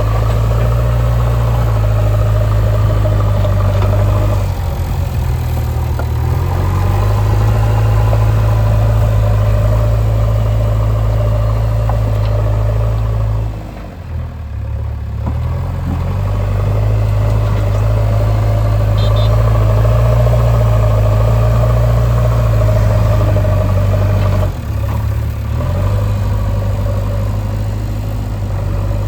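A heavy construction machine's diesel engine running steadily with a low-pitched drone. The engine note dips briefly about halfway through and again near the end, then settles back.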